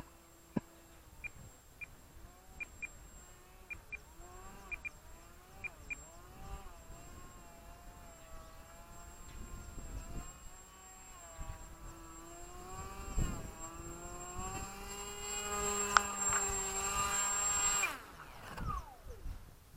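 Electric motor and propeller of a small foam flat-plate RC plane whining, the pitch rising and falling with the throttle. It grows much louder as the plane comes in low and close, then cuts off suddenly about two seconds before the end.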